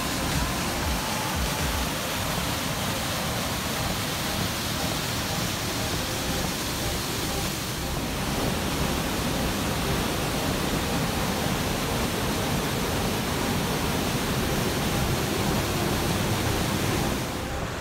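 Whitewater of Avalanche Creek rushing through a narrow rock gorge: a loud, steady rush of water.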